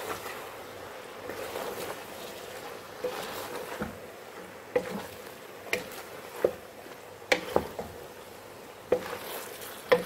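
Wooden spoon stirring a pork, carrot and onion stir fry in a large aluminium pot: a soft scraping hiss, with sharp knocks of the spoon against the pot about once a second from around three seconds in.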